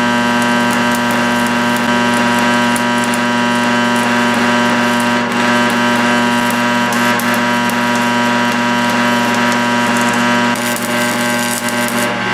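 Stick-welding rebar: the arc crackles and spits continuously over a steady electrical hum.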